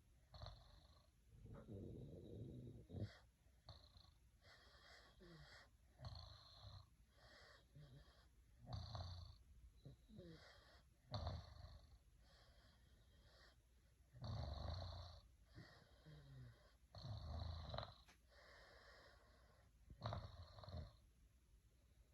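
Faint snoring: a string of uneven snoring breaths coming every second or two, with a few louder, longer snores in the latter part.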